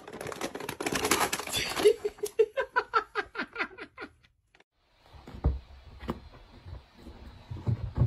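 Paper bag crinkling loudly for about two seconds, then a person laughing in a quick run of short laughs that fade out. After a pause, faint low rumbling with a few knocks.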